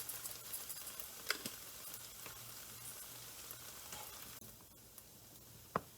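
Sliced bell peppers and onions sizzling faintly as they fry in a pot, with a few light clicks. The sizzle drops away about four seconds in, and a single sharp click comes near the end.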